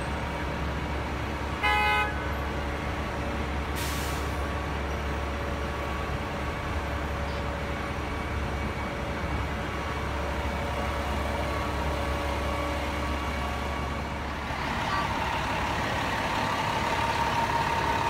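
Fire trucks' diesel engines running steadily, with one short horn blast about two seconds in and a brief air hiss at about four seconds. The engine sound grows louder and fuller near the end, close beside the engine company's rig.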